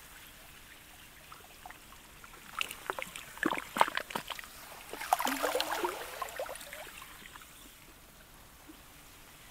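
Slushy sea ice (sludge and pancake ice) lapping at the shore. Over a faint steady wash, a wave brings a cluster of sharp clicks and small splashes from about two and a half seconds in, then a louder slosh whose tone slides downward, before it settles back to the quiet wash.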